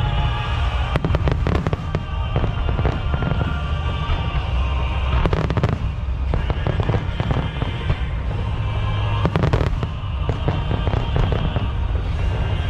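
Fireworks bursting over a continuous low rumble, with clusters of sharp crackling bangs about a second in, near the middle and near the end.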